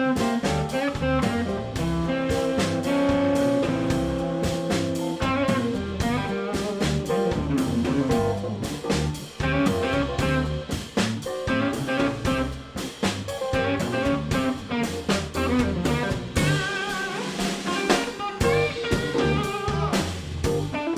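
Live electric blues band playing an instrumental break: guitar over bass and a steady drum kit beat, with keys in the band. The bass and kick drum drop out briefly about three-quarters of the way through, then come back.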